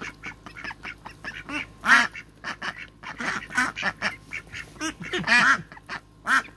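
A flock of domestic ducks quacking while being hand-fed pasta: many short calls, one after another, from several birds, loudest about two seconds in and again a little past five seconds.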